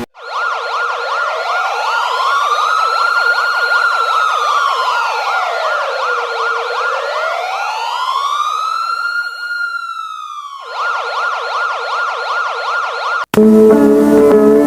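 Electronic emergency-alert siren: a fast yelping warble with a slower wail rising and falling twice over it. The wail drops out about ten seconds in, the yelp cuts off suddenly near the end, and music starts.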